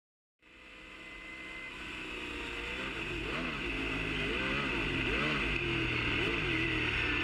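The 1967 Vollstedt 67B Indy car's Ford engine running, heard from an onboard camera. It fades in about half a second in and grows louder, with the revs rising and falling several times in quick succession partway through.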